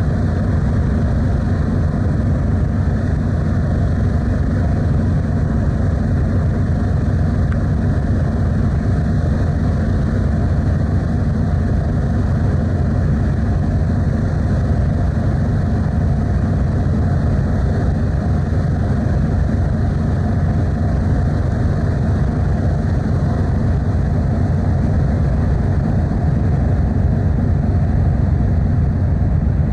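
Steady low rumble and rushing noise of the car ferry Kuniga under way, unchanging throughout.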